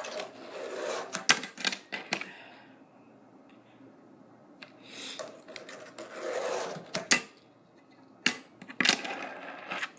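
Fingerboard being flicked and landed on a rail: sharp clicks of the board popping and hitting, with two rasping stretches of a second or two where it rolls or grinds along.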